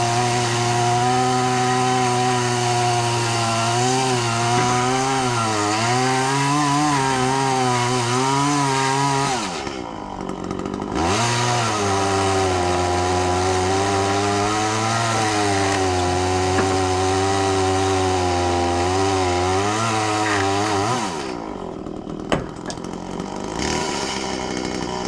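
Chainsaw running hard through wood, its engine pitch wavering and dipping as it cuts under load. It lets off briefly about ten seconds in, cuts again, then drops back to idle near the end.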